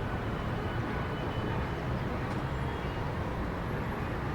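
Steady low rumble of road traffic, an even wash of noise with no single vehicle or event standing out.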